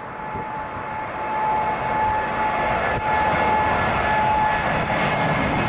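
Boeing 787 Dreamliner's twin turbofan engines at takeoff thrust as the airliner climbs out overhead. The jet noise grows louder over the first second and a half, then holds, with a steady high fan whine on top.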